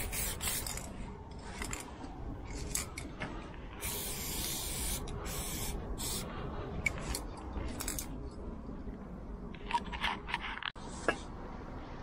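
Aerosol spray paint can hissing in a series of short bursts, with one longer burst of about a second about four seconds in.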